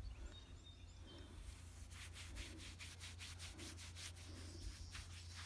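Faint rubbing and rasping against an animal's coarse, shaggy coat close to the microphone, with a quick run of short strokes, about four a second, from about two seconds in.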